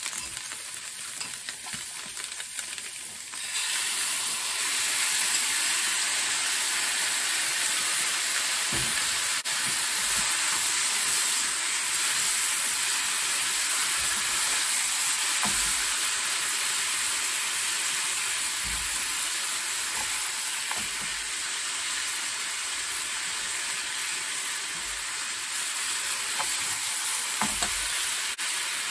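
Bitter melon and fried fish cake sizzling in a hot frying pan while being stirred with chopsticks. The sizzle gets louder about three seconds in as the miso sauce goes into the pan, and there are occasional light taps of the chopsticks.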